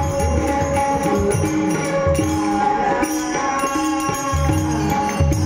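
Marathi devotional folk song music with tabla: deep drum strokes and short repeated notes over steady held tones, with a jingling percussion.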